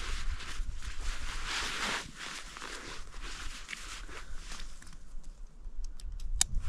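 Fabric rustling as a rucksack is packed and handled, over a low wind rumble on the microphone, with a few sharp clicks near the end.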